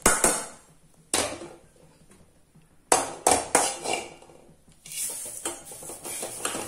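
A metal spoon clinks against stainless steel and aluminium dishes a few times as dried drumstick (moringa) leaves are moved. From about five seconds in comes steady scraping and rustling as the dry leaves are stirred with a metal spatula in an aluminium pan, dry-roasting them.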